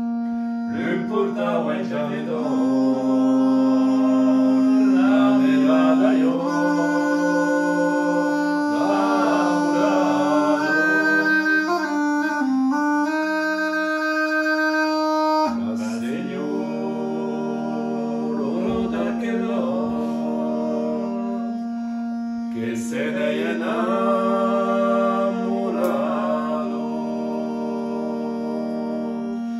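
Bagpipe playing a tune of held notes over a continuous drone, with a man's voice singing in phrases over it. The drone drops out briefly about halfway through, then returns.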